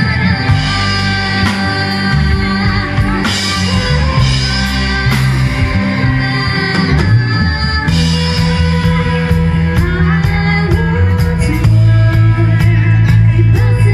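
Rock music with a singing voice, guitar and drums; it gets louder near the end.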